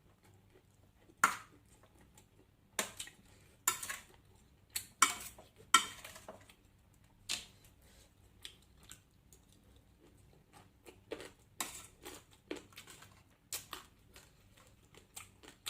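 Irregular clinks and clatters of eating utensils and dishes during a meal: a dozen or so sharp, unevenly spaced strikes, the loudest in the first six seconds.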